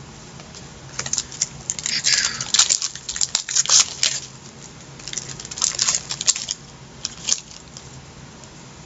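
Baseball cards and their packaging handled close to the microphone: two bursts of papery crackling and rustling with sharp clicks, then a single click near the end.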